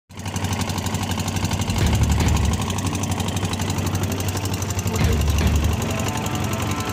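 A small wooden fishing boat's engine running steadily, with a fast knocking beat.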